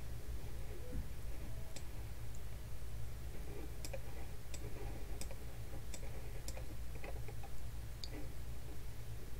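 Computer mouse clicking about seven times at irregular intervals over a steady low hum.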